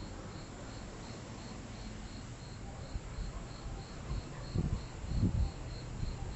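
Crickets chirping in an even rhythm, about three chirps a second, over a low background rumble. Two louder low rumbles come through about four and a half and five seconds in.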